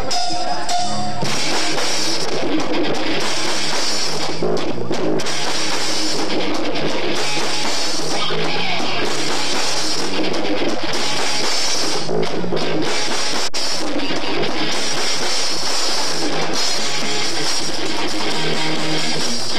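Live rock band playing loud, with drum kit and guitar; the band comes in about a second in. It is heard through a camcorder's microphone on an old VHS tape, dense and crowded.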